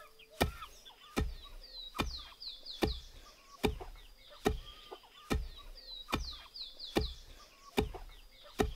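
Wooden pestle pounding rice grains in a wooden mortar: a dull thud about every 0.8 seconds, at a steady beat. Birds chirp with quick falling notes in the background.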